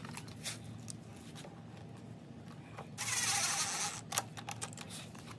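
Light clicks and knocks of small screws and plastic engine parts being handled and fitted by hand, with a brief scraping rustle about three seconds in.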